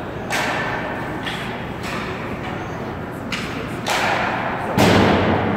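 About half a dozen sharp bangs and thuds from hockey play on an ice rink, each ringing briefly in the arena; the loudest comes near the end.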